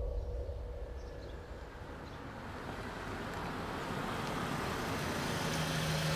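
A low drone fades out at the start. Then a car approaches and pulls up, its tyre and engine noise growing steadily louder from about two seconds in. Near the end it settles into a steady low engine hum.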